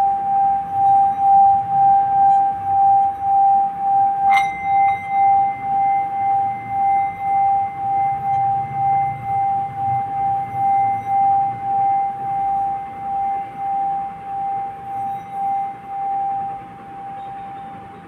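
Singing bowl rubbed around its rim with a wooden striker, singing one steady ringing tone that swells and fades regularly, a little more than once a second. About four seconds in, the striker clinks against the bowl and a fainter, higher ring joins in; near the end the tone stops.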